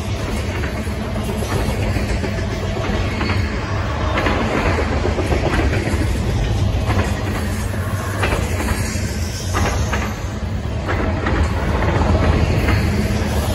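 Freight train of flatcars carrying garbage containers rolling past: a steady rumble of steel wheels on rail, with scattered clicks and clanks as the wheels pass over the rail joints.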